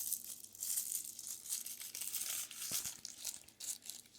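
Thin plastic toy packaging crinkling as it is handled and pulled open, a rapid crackle that thins out near the end.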